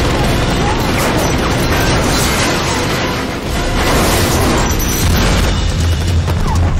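Film sound mix of large explosions and crashing debris as vehicles are blown up, over a loud action score. A fresh blast comes about four seconds in, followed by a deep rumble.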